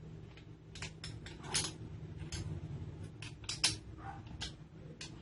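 Irregular light clicks and taps of screws being tightened on a chainsaw adapter head fitted to an angle grinder, over a steady low hum.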